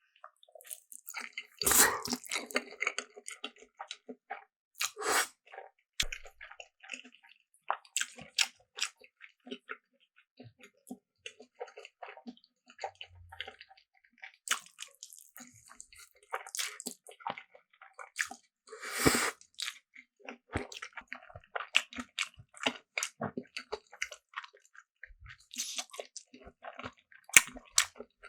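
Close-miked eating sounds: wet, squishy chewing with crunchy bites and mouth clicks, with several louder bites or mouthfuls scattered through.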